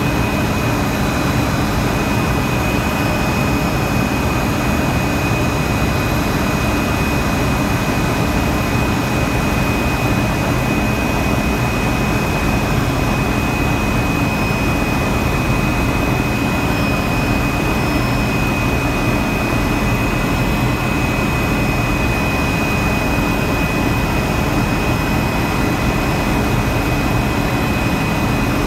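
Helicopter running steadily in flight, heard from inside the cabin: a dense rumble with a constant high whine over it.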